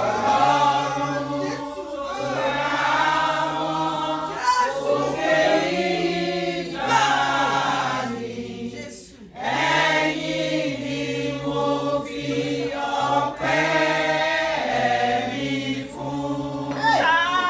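Women singing a worship song together in long held phrases, with a steady low note moving in steps beneath them and a short break about nine seconds in.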